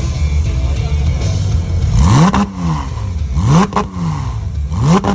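A car engine with a loud aftermarket exhaust idles with a steady low rumble. It is then revved hard three times, about a second and a half apart, and each rev drops back with sharp cracks from the exhaust.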